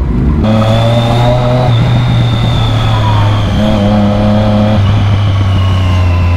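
Sport motorcycle's inline-four engine running at steady low revs while riding slowly, its pitch stepping up and down slightly a couple of times. A faint high whine falls slowly in pitch through it.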